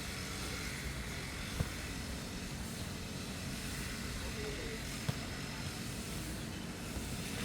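Motorised grass-cutting machine running steadily at a constant drone, with two sharp knocks about a second and a half in and about five seconds in.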